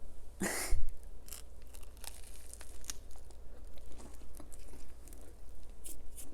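Close-miked bite into a toasted multigrain BLT sandwich, followed by crisp crunching and chewing of the toast, bacon and lettuce, heard as many short crackles. A brief low thump comes just after the bite.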